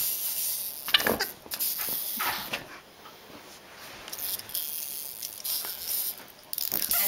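Boston terrier puppy giving short woofs, loudest about a second in and again around two seconds. Under them runs the high buzzing whirr of a tiny wind-up robot toy's clockwork, which stops and starts and cuts off near the end.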